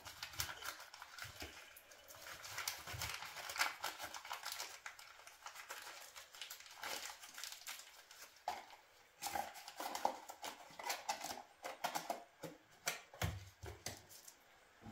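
Brown wrapping paper crinkling and rustling in irregular crackles as gloved hands unwrap a part, with a few light knocks near the end.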